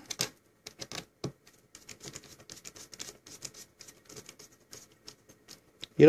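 Small Phillips screwdriver turning screws into the plastic memory-bay cover of a Toshiba Satellite laptop: faint, irregular ticks and scrapes as the screw threads bite.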